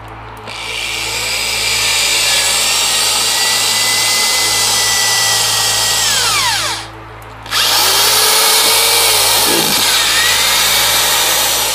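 Corded electric drill boring into a treated pine 1x4, feeling for solid wood in the camper roof beneath to take a lag bolt. It runs steadily with a high whine, winds down with falling pitch a little past halfway, stops briefly, then starts and drills again.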